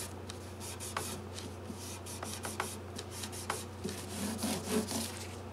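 Cloth dampened with naphtha rubbed back and forth along a guitar fretboard, wiping off gray fret dust: an irregular rubbing with scattered light ticks, stopping near the end.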